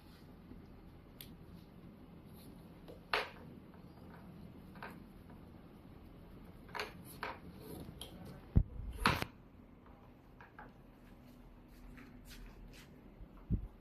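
Scattered clicks and knocks of water bike parts being handled and fitted during assembly, the loudest a pair of knocks about nine seconds in.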